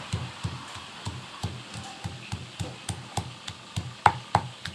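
Stone pestle pounding garlic, onion and ginger in a stone mortar: a steady run of dull thuds, about three or four a second, with two sharper, louder knocks near the end.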